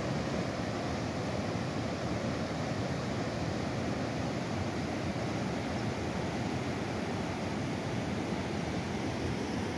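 Steady rushing noise that stays even throughout, with no distinct events.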